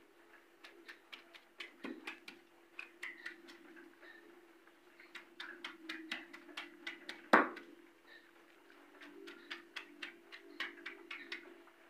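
Stone pestle knocking and tapping on a flat grinding stone as raw prawns, grated coconut and spices are crushed by hand: irregular knocks a few times a second, with one louder knock about two seconds in and the loudest about seven seconds in.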